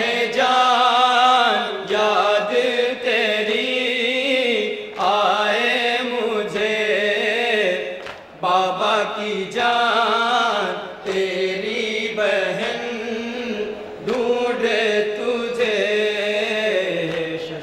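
A group of men chanting a noha, a Shia lament, together into microphones, in long drawn-out sung phrases with short breaks between them.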